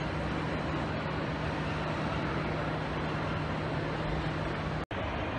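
Railway station platform ambience under a high roof: a steady wash of noise with a low mechanical hum that stops about four seconds in, and a sudden brief gap in the sound shortly before the end.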